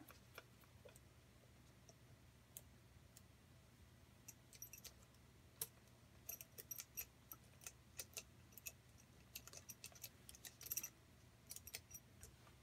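Faint, irregular clicks and taps of small metal engine parts being handled and fitted together by hand. The clicks are sparse at first and come thicker in the second half.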